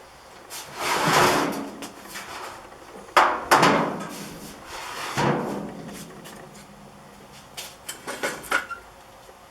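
Handling knocks and scrapes with a short ring after each: three larger clattering scrapes in the first half, then a few light clicks and taps near the end.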